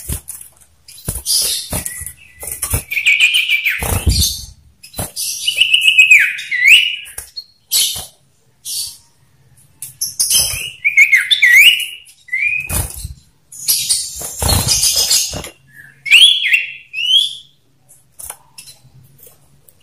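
Male common ioras in a calling duel: harsh rattling chatters alternating with loud whistled notes that swoop up and down, in quick, irregular phrases. A few low fluttering thumps of wings in the cage come in between, about four seconds in and again around fourteen seconds.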